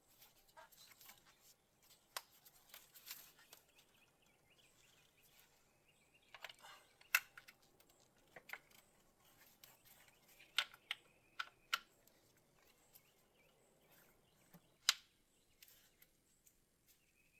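Scattered sharp clicks and light knocks of engine parts being handled and fitted, a few loud ones around a quarter of the way in, in the middle, and near the end.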